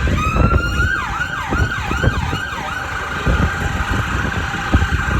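Emergency vehicle siren in street traffic: a rising wail, then several quick up-and-down yelps, then a steadier tone, over the low rumble of traffic.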